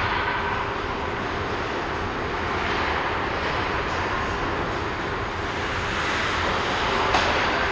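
Steady roar of an indoor ice rink during a hockey game, with a single sharp knock about seven seconds in.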